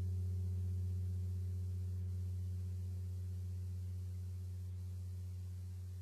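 26-inch vintage Zildjian Turkish tam-tam ringing on after a stroke: a low hum with a few faint higher overtones, slowly dying away.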